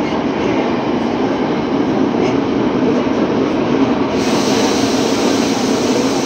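Tokyo Metro 07 series subway train running, heard from inside the car: a steady rumble of wheels on rail. A high hiss comes in about four seconds in and stops near the end.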